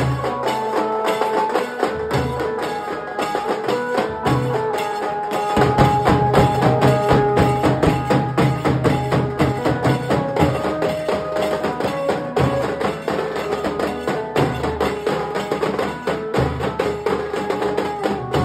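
Nashik dhol drumming: a group of large barrel dhols beaten with sticks in a fast, dense rhythm, with sharp cracking strokes over the top and a held melody line alongside. The deep drum beat gets heavier about five and a half seconds in.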